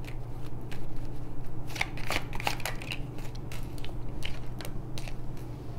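A deck of tarot cards being shuffled by hand: irregular papery clicks and short riffling rustles as the cards slide against each other.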